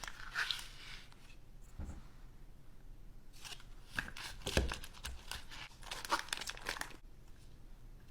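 Hands preparing food at a kitchen counter: short scraping, tearing and crinkling strokes with a few light thumps, coming thickest in a quick run over the last few seconds.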